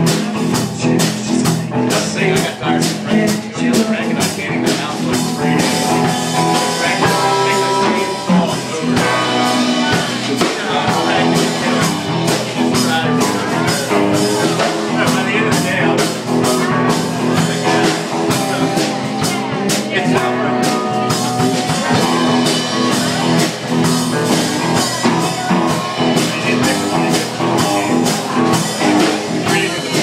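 Live rock band playing a song: electric guitar over drums, with frequent drum and cymbal hits.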